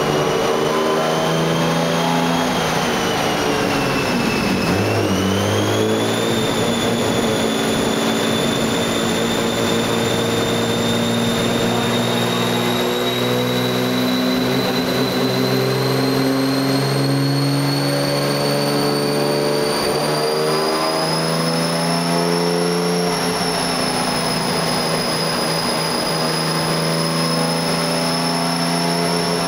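Toyota Supra race car's turbocharged straight-six running on a chassis dyno, held at a fairly steady speed rather than swept through a full-throttle pull. A high whine over the engine note rises slowly in pitch, and the note dips briefly about four seconds in before climbing again.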